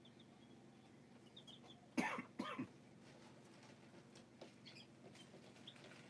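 Faint, short high peeps from quail chicks, and a loud cough in two quick bursts about two seconds in.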